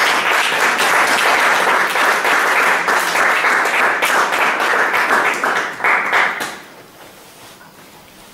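Audience applauding, which dies away about six and a half seconds in and leaves quiet room tone.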